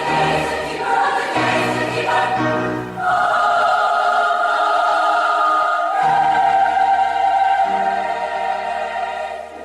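Choral music: a choir singing, moving through several short notes and then holding long chords, fading near the end.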